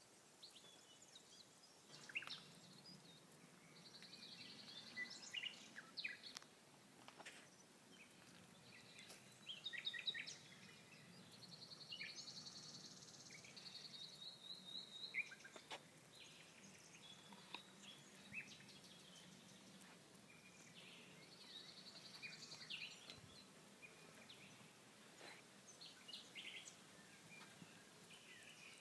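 Songbirds singing and calling faintly: scattered chirps and short high trills, with one buzzy trilled phrase coming back every eight to ten seconds, over a faint steady background hush.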